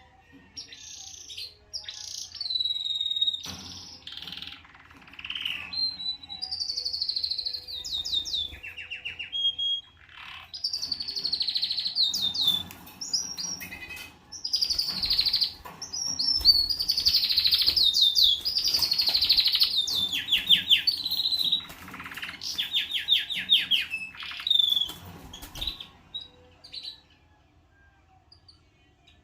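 Canary singing: a run of varied phrases made of fast trills and quickly repeated high notes, with short pauses between them, falling silent a few seconds before the end.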